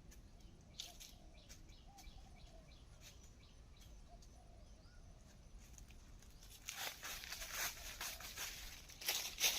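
Faint bird calls repeat in short arched notes with a few light clicks. Then, about seven seconds in, loud uneven rustling and crackling starts, like movement through dry leaves and brush.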